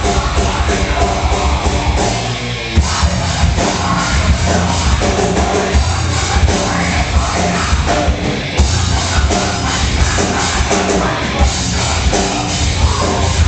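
Loud rock music with heavy bass and a steady beat, playing over a sound system.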